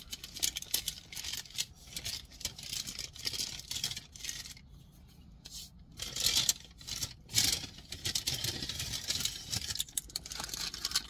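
Paper fast-food bag and packaging rustling and crinkling as it is handled and opened, in irregular bursts that are loudest a little past halfway.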